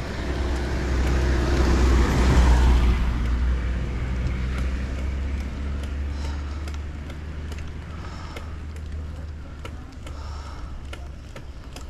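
A motor vehicle passing on the road, its engine and tyre noise swelling to a peak about two seconds in and then fading, over a constant low rumble.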